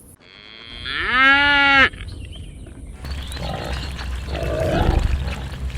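Cows mooing: one clear moo that rises and is held for about a second, then after a short gap two rougher, lower moos.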